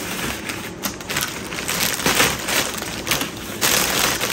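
Clear cellophane gift-basket wrapping crinkling and crackling as it is pulled open by hand. It comes in irregular crackles and gets louder near the end.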